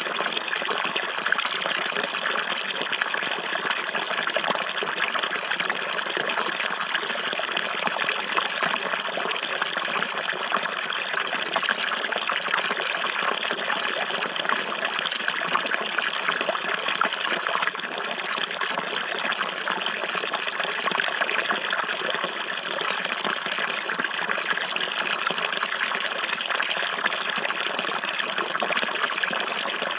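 Running water flowing steadily with a continuous trickling, splashing rush that never changes.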